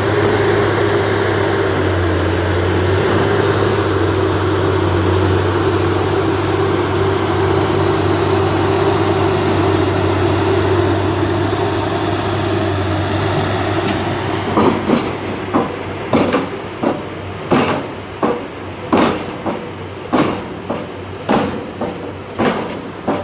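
Heavy diesel piling machinery running with a steady engine drone. About two-thirds of the way through, a regular series of sharp knocks begins, roughly one or two a second.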